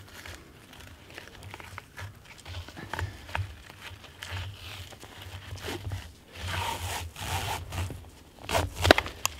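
Close handling noise of hands working a trail camera loose from a tree trunk: scattered clicks, rubbing and zip-like rasps, with jacket fabric rustling. The loudest rasps and a sharp click come near the end.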